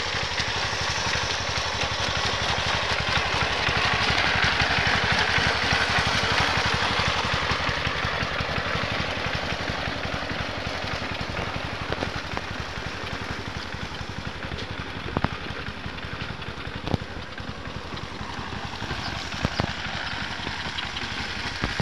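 Tractor engine running steadily while working a flooded rice paddy, growing louder around five seconds in and then easing off. A few sharp clicks sound in the second half.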